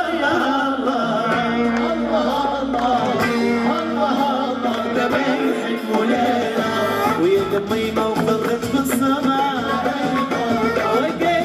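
Live Moroccan chaabi band: a male vocalist singing into a microphone over violin, keyboard and hand drums (congas and frame drums), playing continuously at an even level.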